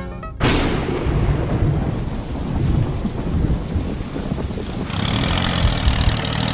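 A thunderclap about half a second in, rolling on into a long rumble over heavy rain. About five seconds in, a steady engine sound joins the rain.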